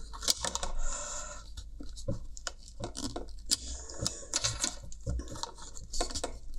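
Plastic-on-plastic scraping and clicking as a plastic pry tool works at a module tightly clipped into a headphone earcup's housing: scattered sharp clicks with scratchy scraping between them.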